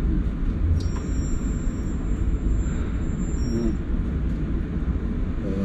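Double-decker bus heard from inside the cabin: a steady low rumble of engine and road noise. A click comes about a second in, followed by a faint high-pitched tone that holds for about three seconds.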